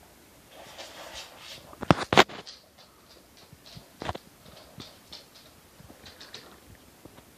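A papillon puppy moving about on a corduroy couch cushion, faint scuffing and scraping of paws on the fabric. Two sharp knocks come about two seconds in and another about four seconds in.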